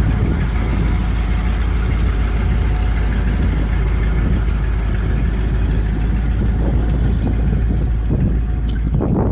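1976 Ford grain truck's engine running steadily, with a brief rush of noise near the end.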